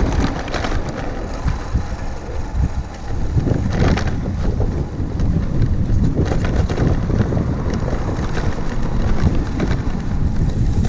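Wind buffeting the action camera's microphone during an e-bike ride over a bumpy dirt path, a steady low rumble. Scattered knocks and rattles from the bike going over bumps, the clearest about four seconds in.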